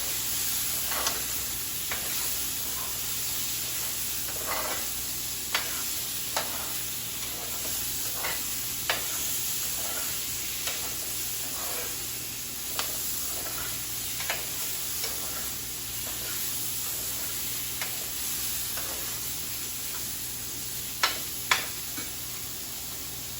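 Onion and peppers stir-frying in a hot pan over high flame: a steady sizzle, with the short clacks of a utensil stirring against the pan every second or so and two sharper knocks near the end.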